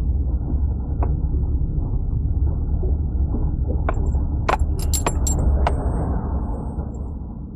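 Steady low engine and road rumble inside a small car's cabin while driving, with a short cluster of sharp clicks and jingles about four to six seconds in.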